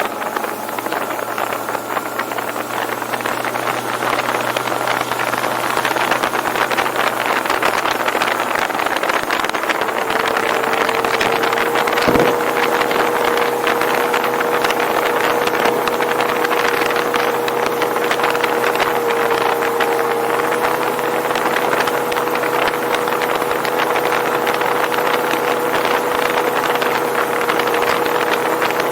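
Boat engine running at speed, a steady drone over a rush of wind and water; a single sharp knock about twelve seconds in.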